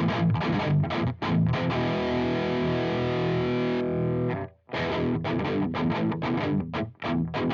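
Electric guitar through a JOYO Dark Flame high-gain distortion pedal, playing a fast chugging riff. A chord is held ringing for about two seconds, then cut off short, and about halfway through the riff starts again.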